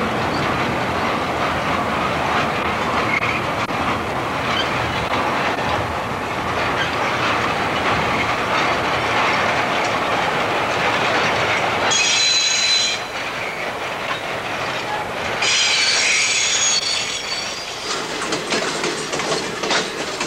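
Passenger excursion train rolling along, heard from aboard: a steady rumble of wheels on rail. High metallic wheel squeal comes in two bursts, about twelve seconds in and again about fifteen seconds in. Near the end the wheels set up a rapid clickety-clack over rail joints.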